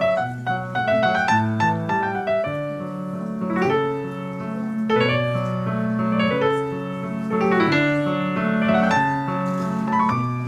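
Piano music: a slow piece with held chords in the low register under a moving melody.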